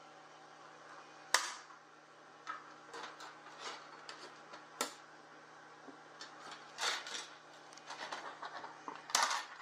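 Sharp clicks and light scraping as plastic printed pieces are pried and scraped off a magnetic 3D-printer build plate: a loud click about a second in, another near the middle, and a cluster near the end, over a faint steady hum.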